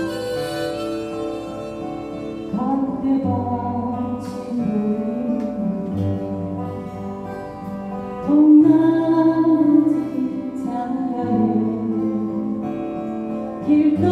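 Instrumental song intro: acoustic guitar with a bass line underneath and a gliding, sustained melody line on top, with no sung words yet.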